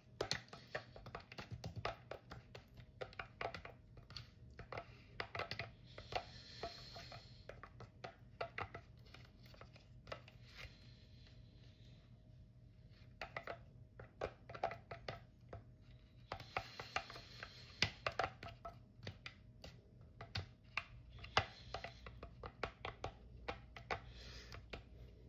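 Metal spoon stirring thick ketchup and mustard in a clear plastic cup, clicking and scraping against the cup in irregular runs with short pauses.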